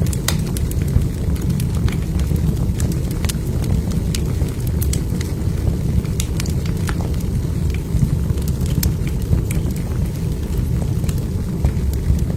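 Wood fire burning in a fireplace: a steady low rumble of flames with frequent irregular sharp crackles and pops of burning logs.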